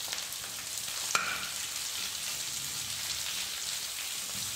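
Sliced onions, green chillies and curry leaves sizzling in hot oil in a stainless steel kadai as they are stirred with a slotted metal spatula, with a single click about a second in.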